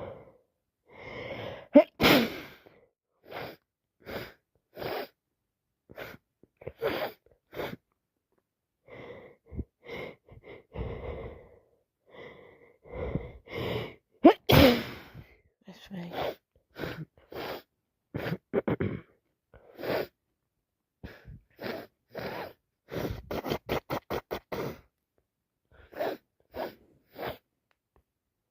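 A woman with a heavy cold sneezing over and over, gasping breaths building up to each sneeze; the two loudest sneezes come about two seconds in and about halfway through. Sniffs and short breaths fill the gaps, with a quick run of about ten short breaths near the end.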